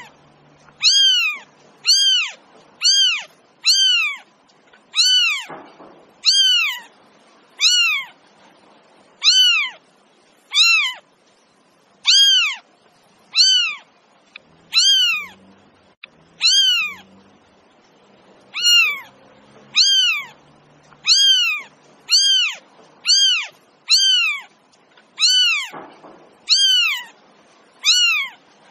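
Cat meowing over and over in short, high calls, each rising then falling in pitch, about one a second with a few brief pauses.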